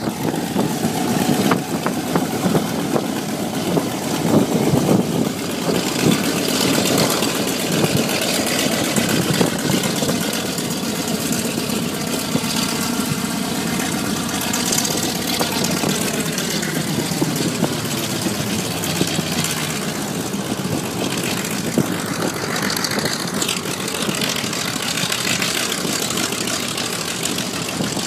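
Vought F4U Corsair's Pratt & Whitney R-2800 radial engine running steadily at low taxi power as the fighter taxis away, its tone slowly shifting as the distance grows.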